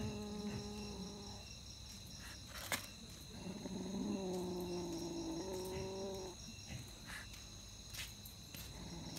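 Domestic cat growling in long, low, drawn-out growls over its cornered mouse: one fades about a second and a half in, a second runs from about three and a half to six seconds, and a third begins near the end. Crickets chirp steadily in the background, with a sharp click near three seconds.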